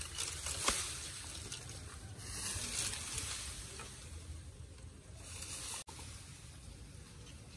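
Bamboo leaves rustling in bursts as a small monkey climbs through them, with a sharp knock a little under a second in and a steady low rumble underneath.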